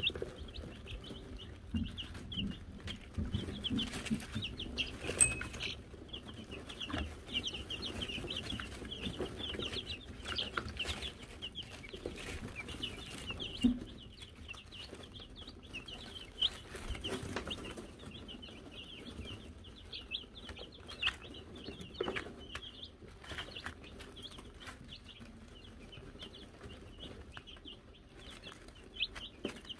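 A brood of Wyandotte chicks peeping continuously, a dense chatter of short high cheeps. About five seconds in comes one sharp strike with a brief ring, a chick hitting the small hanging bell.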